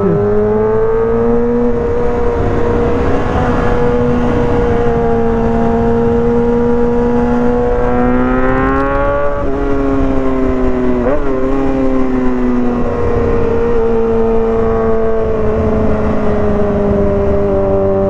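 2023 Kawasaki ZX-6R's 636 cc inline-four running at steady, high revs under way. The pitch climbs about eight seconds in and drops sharply a second and a half later, dips and jumps briefly around eleven seconds, then eases slowly down.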